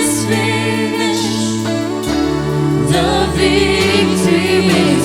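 Live praise-and-worship music: several voices singing over held instrumental chords and bass notes. The bass and chords change about two seconds in and again nearly a second and a half later.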